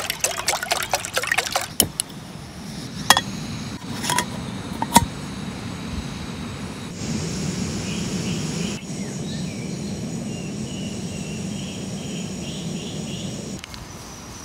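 Water poured from a plastic bottle into a metal camping pot, splashing for about two seconds, followed by four sharp clicks about a second apart. Then a gas camping stove's burner runs with a steady hiss under the pot.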